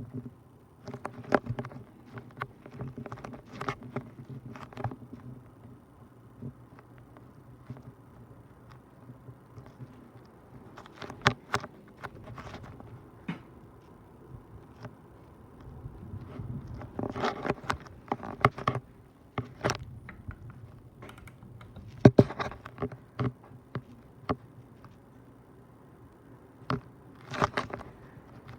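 Hunter Stratford 52-inch ceiling fan running with a steady low hum, broken by irregular clusters of clicks and rattles.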